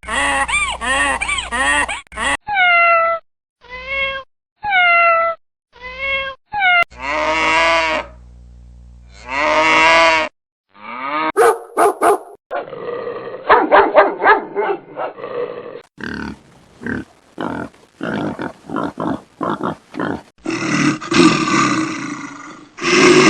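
A series of different animal calls, one after another, each a second or two long with short gaps between. The first ones are pitched, some falling in pitch; the later ones are rough and noisy, with a run of sharp clicks in the middle and a loud rough call at the end.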